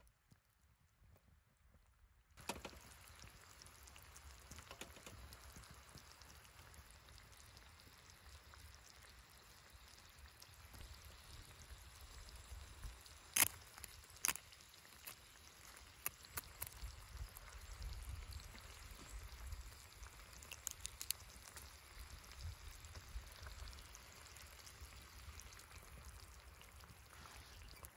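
Faint steady sizzle of olive oil simmering in a camp pot over a wood fire, with scattered small crackles, starting a couple of seconds in. About halfway through, two sharp taps of a knife blade cracking a quail egg shell.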